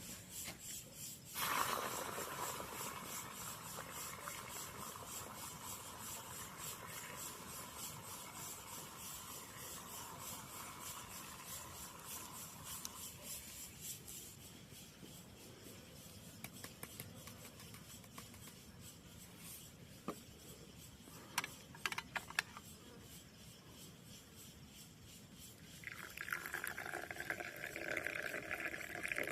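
Liquid being poured into a container, in two pours. A long pour starts suddenly about a second and a half in and tapers off, and a shorter, more ringing pour comes near the end. A few light clicks fall between them.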